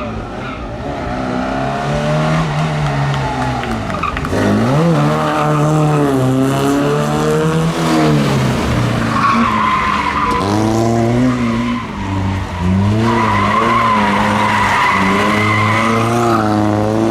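Classic rally car engine revving hard, its pitch climbing and then dropping several times as it shifts gears. Tyres squeal in two long stretches in the second half.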